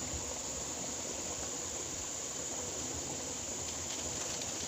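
Steady rushing of flowing water with a constant high-pitched insect drone, likely crickets, over it.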